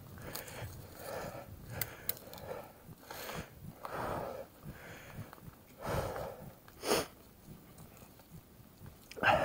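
A mountain biker breathing hard while riding, about one breath a second, with a few sharp clicks in between.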